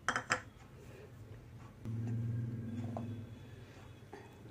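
A couple of sharp clicks, then the electric mixer grinder's motor humming steadily, louder for about a second in the middle and then fainter, as the mint chutney is ground.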